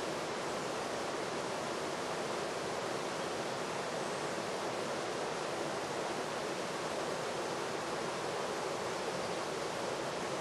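Steady, even hiss with no distinct events, unchanging in level throughout.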